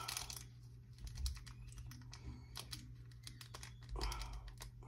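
Quiet, irregular clicks and light crinkling as fingers pick at and pull on the foil wrapper of a Pokémon booster pack that is resisting being torn open. There is a brief louder rustle about four seconds in.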